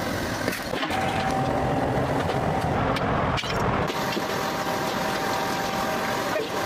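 Steady mechanical running noise, engine-like, with a faint steady whine, from the foundry machinery around a cupola furnace as molten iron is tapped into a ladle.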